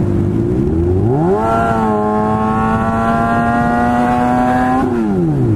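Sport motorcycle engine heard from on the bike while riding: the revs climb over about a second, hold steady, then drop away near the end, with wind rush over the microphone.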